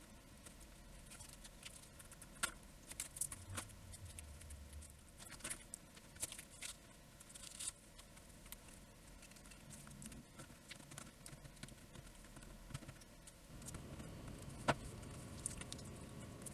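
Faint, irregular small clicks and light scraping from small keyboard parts being handled, with a soft low rumble about halfway through.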